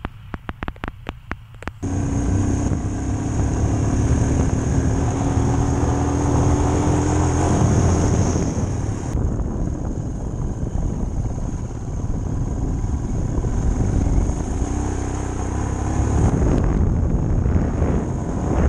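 A quick run of sharp clicks, then from about two seconds in a motorcycle engine running steadily while riding, with wind rushing over the microphone.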